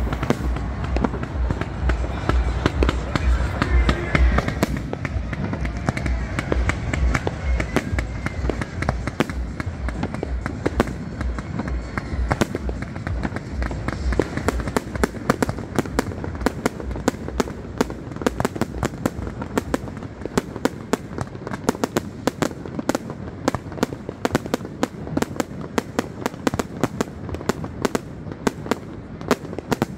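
Fireworks going off close by: a dense, continuous string of sharp crackling pops, several a second, that grows sharper toward the end. A heavy low rumble under the first few seconds fades away.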